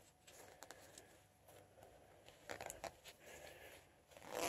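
Faint scattered rustles and light ticks of a hand handling a wet fabric running belt.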